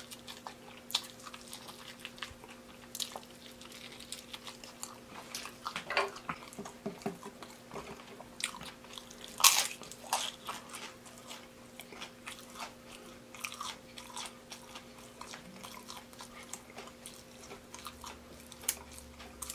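Close-miked eating of deep-fried baby back ribs: crunchy bites and chewing mouth sounds coming every second or so, with one sharp crunch about halfway through.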